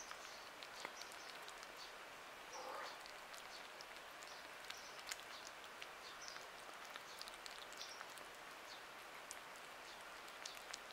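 Two kittens eating wet cat food from a glass dish: faint, irregular wet smacking and chewing clicks as they lap and bite at the meaty chunks.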